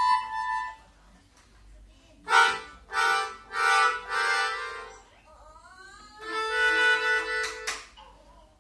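A small free-reed instrument of the harmonica kind played in chords: a few short chords in a row, a rising slide, then one longer held chord.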